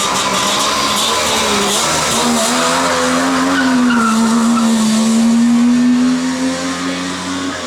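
Wartburg 353W rally car's three-cylinder two-stroke engine running hard at high revs. Its pitch climbs about two seconds in, then holds high and steady.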